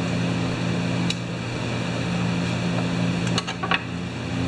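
Steady low machine hum, like a fan running, with a few light clicks of small metal parts and a screwdriver being handled.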